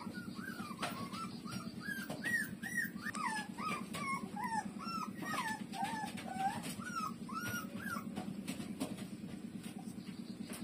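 Puppies whimpering while nursing: a quick string of short, high squeaks that rise and fall in pitch, sometimes overlapping, stopping after about eight seconds. A steady low hum runs underneath.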